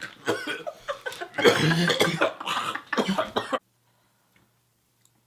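A man coughing and gagging on a mouthful of crispy anchovies: a string of harsh coughs and retching heaves, some with a low throaty voice to them, that stops abruptly about three and a half seconds in.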